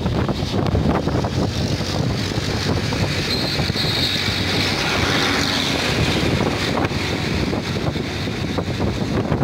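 Strong wind buffeting the microphone: a steady, unbroken rumble of wind noise over choppy harbour water.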